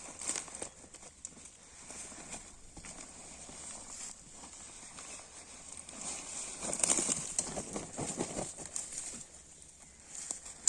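Rustling and irregular soft knocks from the catch being handled, busiest and loudest about seven seconds in.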